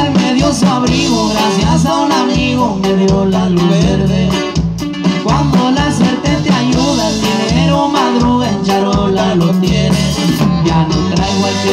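Live band with accordion, electric guitar, bass and drum kit playing a song through PA speakers, a steady dance beat under a gliding melody line.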